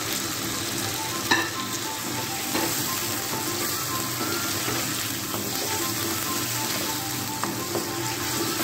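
Raw chicken pieces sizzling as they fry in oil and ginger-garlic paste in a wok, stirred with a wooden spatula. A single sharp knock about a second in.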